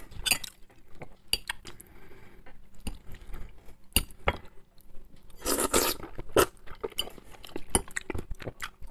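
Metal fork clinking and scraping on a ceramic plate while cutting and picking up pieces of a boiled dumpling, short sharp clicks at irregular intervals.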